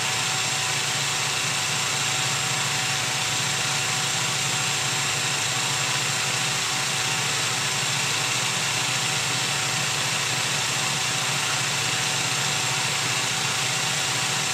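Steady drone of machinery running unchanged: a constant hum and hiss with a few steady tones through it.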